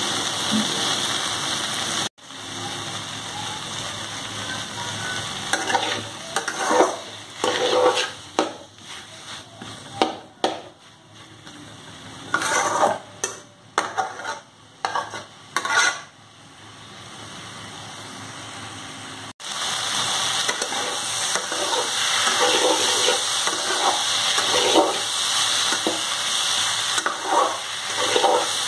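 Soya chunks and potato pieces sizzling in oil in a metal kadai as the spiced masala is fried down. A spatula stirs and scrapes against the pan in repeated short strokes, most of them through the middle and near the end. The sizzle cuts out abruptly twice, about two seconds in and again past the middle.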